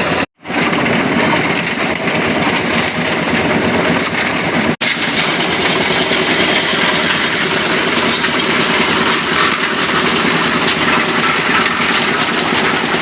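Concrete mixer machine running steadily with its engine going. The sound cuts out briefly twice, near the start and about five seconds in.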